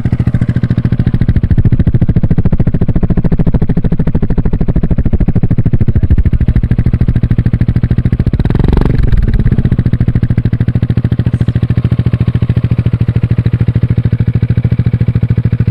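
Yamaha XMAX 300's single-cylinder four-stroke engine running through an aftermarket Akrapovic slip-on exhaust: a steady, loud idle, with one short throttle blip about eight seconds in.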